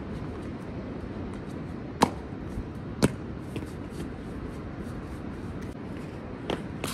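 Steady outdoor background noise on a quiet street, with two sharp clicks about a second apart, two and three seconds in, and two softer clicks near the end.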